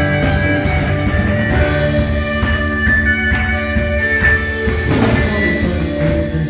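Live worship band playing an instrumental passage: guitar chords over bass and drum kit, with sustained keyboard-like notes.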